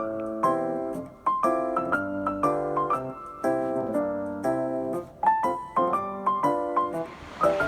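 Background music: piano, playing chords. Near the end, the sound of surf starts to come up under it.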